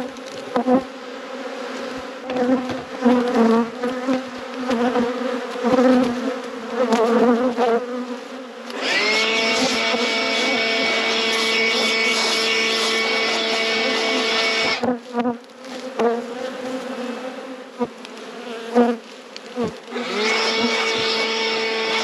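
Honeybees buzzing around the hives, wavering in pitch as they fly past. About nine seconds in, a louder steady buzz starts with a brief rise in pitch as a bee hovers close by. It stops about six seconds later and starts again near the end.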